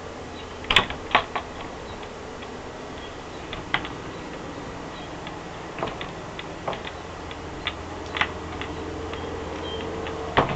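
Irregular sharp taps of water drops falling close to the microphone, about a dozen spread unevenly, over a steady low background noise.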